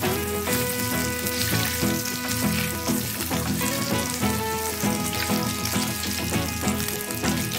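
Cut hot dog sausages sizzling in hot oil in a frying pan, stirred now and then with a wooden spatula. Music plays underneath.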